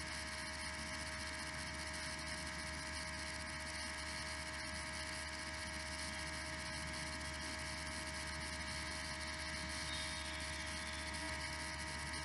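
Steady electrical hum and hiss of the recording setup, with a few faint steady tones and nothing else happening.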